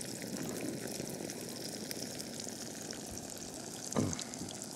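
A burger and onions sizzling in a frying pan on a gas camping stove: a steady crackling hiss with many small pops. A brief low thud-like sound about four seconds in stands out above it.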